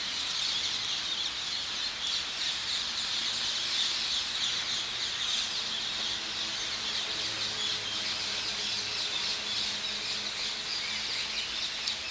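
A flock of hundreds of rose-ringed parakeets screeching at a communal roost: a dense, unbroken chorus of shrill overlapping calls.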